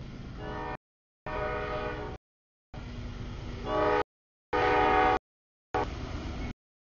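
CSX freight locomotive's multi-tone air horn sounding for the grade crossing over the low rumble of the engine, loudest about four to five seconds in. The sound keeps cutting out in short silent gaps.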